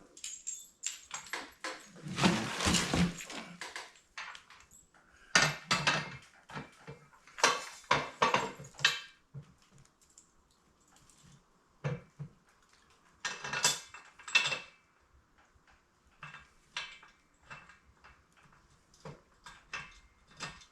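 Metal hand tools and steel jack parts clinking and knocking together as they are handled, in irregular clusters of clicks and rattles, the busiest in the first half and sparser toward the end.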